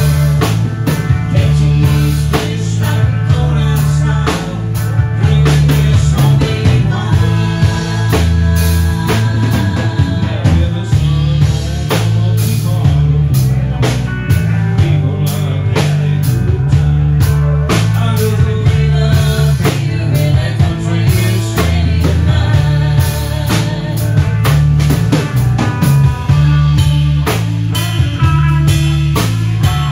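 Live outlaw country band playing: bass guitar, drum kit with regular hits, and guitar, loud and steady throughout.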